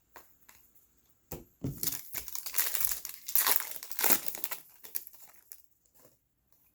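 Trading-card pack wrapper crinkling and rustling as it is handled and torn open, loudest in the middle of the stretch and dying away about five and a half seconds in.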